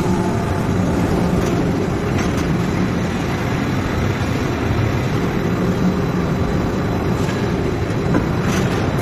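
Steady mechanical din of forging-factory machinery: a continuous rumble with a low hum and a few faint knocks.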